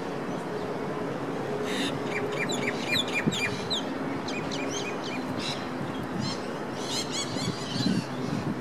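Small birds chirping in quick runs of short, sharp notes, three times over, above a steady low hum of riverside city ambience.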